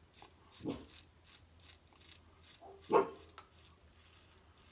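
A dog barking twice, two short barks about two seconds apart, the second louder, in alarm at the mail carrier's arrival. Between them, a cartridge razor scrapes faintly over lathered stubble in short, repeated strokes.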